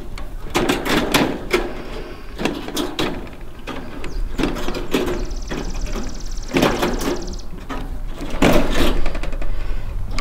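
Roll of welded wire mesh rattling and scraping as it is handled on a plywood board, with irregular metallic clicks and knocks from wire snips working the wire.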